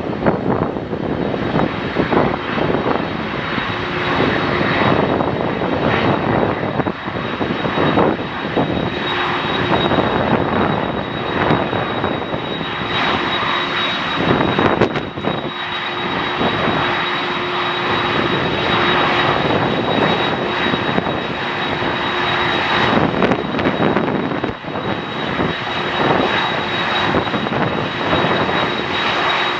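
Airliner engines running loudly and steadily, with a high, steady whine over a rushing roar.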